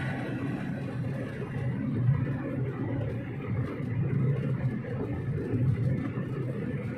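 Steady low rumble of a vehicle on the move, swelling slightly a few times.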